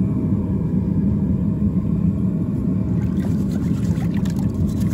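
Steady low rumble throughout. From about three seconds in, water splashes and a wire brush scrubs a freshly cast aluminum piece in a bucket of water.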